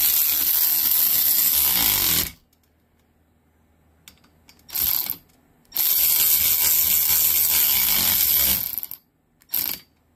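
Milwaukee M12 cordless ratchet (the standard, non-fuel model) running a socket down onto a bolt for about two seconds, then, after a brief blip, running down a second bolt for about three seconds; its pitch sinks toward the end of each run as the bolt tightens. A short blip of the ratchet near the end.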